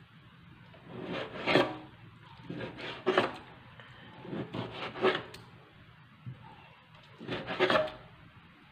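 Large kitchen knife slicing raw pork on a cutting board: four bouts of rasping, sawing strokes through the meat, each ending in a sharp knock of the blade on the board.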